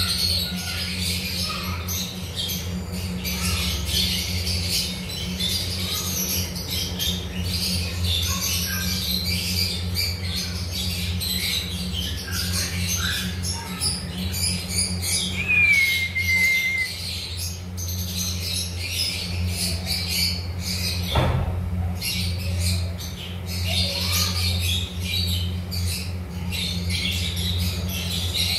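Lovebirds chattering: a dense run of high chirps and squeaky squawks, with one short falling whistle about sixteen seconds in, over a steady low hum. A single sharp knock comes about two-thirds of the way through.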